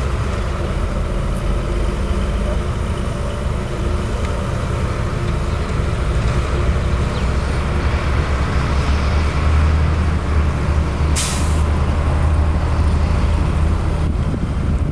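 Heavy diesel earthmoving machinery running steadily, with a single short hiss of an air brake about eleven seconds in.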